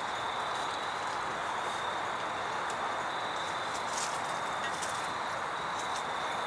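Steady hiss of background noise with a faint high whine and a couple of soft clicks about four seconds in.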